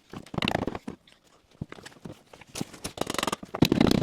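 Hand tools working on a VW Beetle's steering-column coupling bolts: scattered metal clinks and knocks, then a dense run of rapid clicks about two and a half seconds in.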